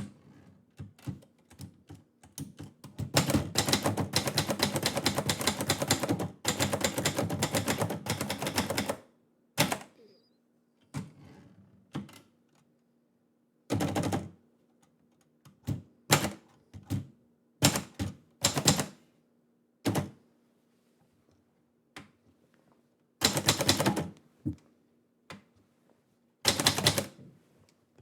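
Manual typebar typewriter being typed on: a fast run of keystrokes lasting several seconds, then single strikes and short bursts with pauses between them.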